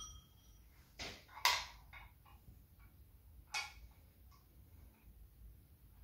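A few sharp clacks and knocks from a baby's activity toy being handled, the loudest about one and a half seconds in and another a couple of seconds later.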